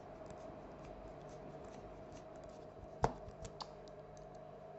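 Precision screwdriver and small screws clicking and ticking against a smartphone's frame during reassembly, with one sharp click about three seconds in and two lighter ones just after, over a faint steady hum.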